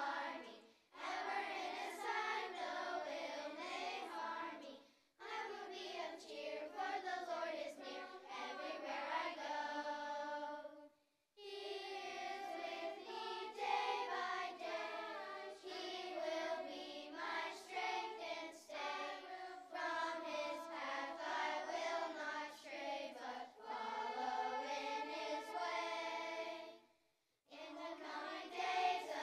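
Children's choir of third- to sixth-graders singing, the phrases broken by four brief pauses.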